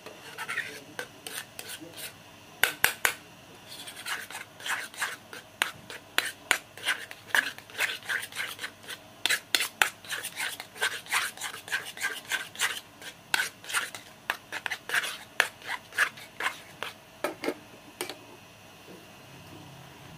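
Metal spoon stirring and scraping a thick glutinous rice flour paste in a small metal pot: a quick, uneven run of scrapes and taps, about two or three a second, that stops near the end.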